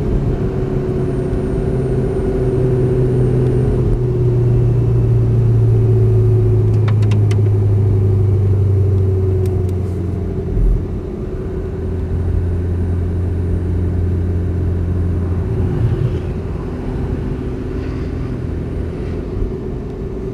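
Porsche 918 Spyder driving slowly: a steady low drive hum with an even higher tone above it, easing a little in the second half as the car slows. A few faint ticks sound around the middle.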